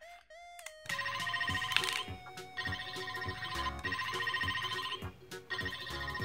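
Phone ringtone trilling in repeated bursts, starting about a second in, over background music.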